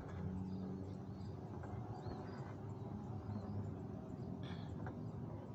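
Quiet outdoor ambience: small birds giving short, high chirps every half second or so, with a slightly louder call about four and a half seconds in, over a low steady hum.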